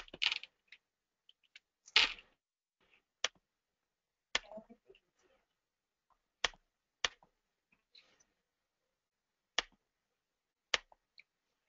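Scattered sharp clicks from working a computer, about eight of them at irregular intervals over some eleven seconds.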